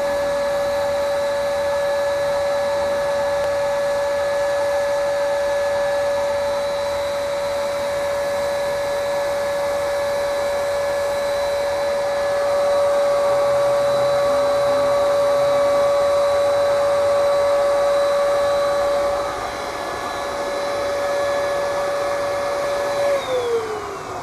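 Handheld portable electric spray gun's motor running with a steady whine as it sprays paint; near the end it is switched off and the whine falls in pitch as the motor spins down.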